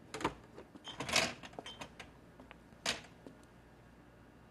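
Clicks and clatter of things being moved about in a kitchen cupboard: one sharp click, a short rattling cluster about a second in, and another sharp knock near the three-second mark.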